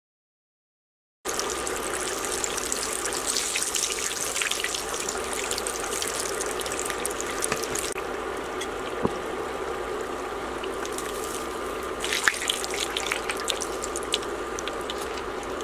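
Coated tilapia fillets deep-frying in hot oil in a cast-iron skillet: steady sizzling with fine crackling, starting suddenly about a second in. The crackling is louder for the first several seconds, then settles and picks up again about twelve seconds in.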